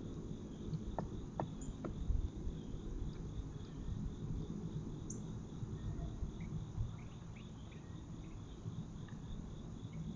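Insects chirping in a steady, evenly pulsing rhythm, over a loud low rumble of outdoor microphone noise. A few short sharp clicks come about one to two seconds in, and brief faint chirps a little past the middle.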